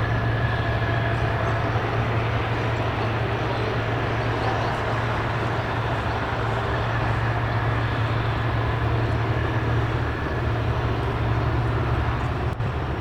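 Jet aircraft engine running steadily, a constant low hum under an even rushing noise.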